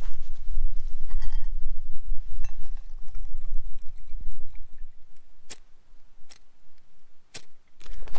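Camp cooking gear being handled: a short ringing clink about a second in, then a few sharp clicks and knocks, over a steady low rumble.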